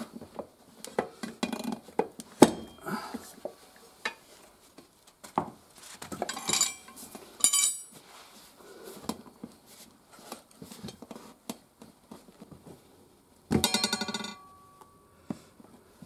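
Steel tire levers and a new tire being worked onto an aluminium motorcycle wheel rim: scattered metal clinks and knocks, the loudest about two seconds in, a few short scraping sounds, and a brief rattle near the end.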